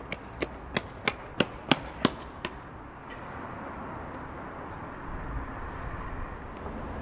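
Hurried footsteps on pavement, about three steps a second, growing louder until they stop about two and a half seconds in. Then a steady outdoor street ambience.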